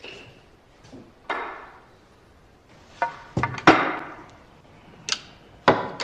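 Several sharp wooden knocks and clacks, the loudest a quick cluster a little past halfway: pool cues being handled and set into a wall-mounted cue rack.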